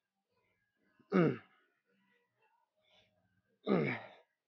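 A man's short effortful groans on the out-breath, each sliding down in pitch. There are two, about two and a half seconds apart.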